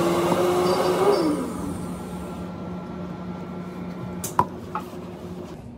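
A blender motor running with a slowly rising whine, switched off about a second in and winding down, leaving a low steady hum; one sharp clink near the end.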